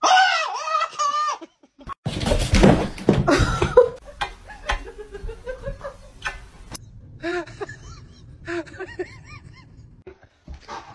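People laughing in several short bouts, with a noisy stretch and abrupt breaks between them.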